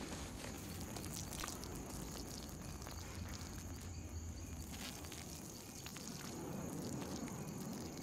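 Two men urinating into a bush: a faint, steady trickle and patter of urine on leaves and ground.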